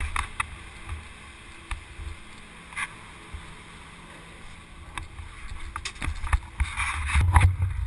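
Gondola cabin in the lift terminal: a steady low rumble with wind on the microphone, under scattered knocks and clatters that grow louder and busier near the end.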